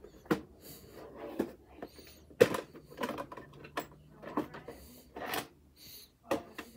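A series of irregular clicks and knocks, spaced unevenly, with a faint steady low hum in the middle.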